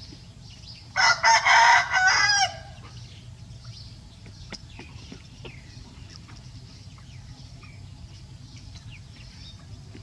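A rooster crows once, about a second in: a loud, pitched call of about a second and a half that breaks into a few parts and falls away at the end. Faint high chirps of small birds follow over a low background hum.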